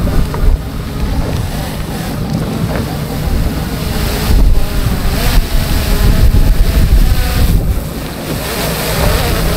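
Motorboat under way on open sea, its motor running under heavy wind buffeting the microphone, with water rushing past the hull.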